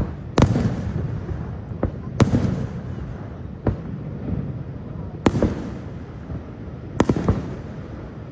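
Aerial fireworks shells bursting: about six sharp bangs at uneven intervals, each followed by a rolling low rumble of echo.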